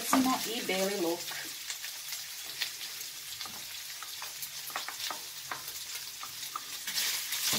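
Diced chicken sizzling in a frying pan, with scattered clicks and scrapes from a wooden spoon stirring it.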